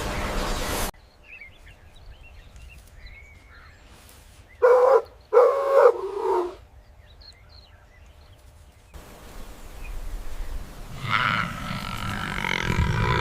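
An animal calling: three short, loud, pitched cries in quick succession near the middle, after a hiss that cuts off about a second in and faint chirping; a noisy sound builds up near the end.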